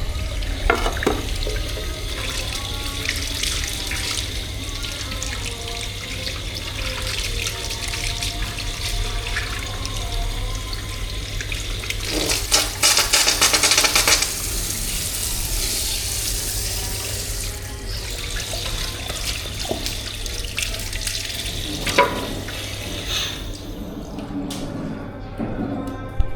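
Tap water running into a sink, with a stronger gush for a couple of seconds about halfway through and a few light knocks.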